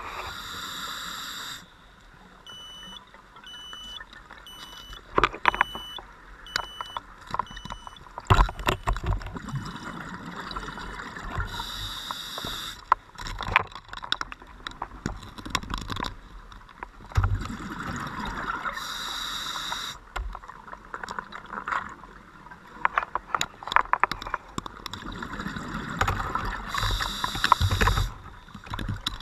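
Scuba diver breathing underwater through a regulator: a hissing inhalation about every seven or eight seconds, with bubbly, gurgling exhalations in between.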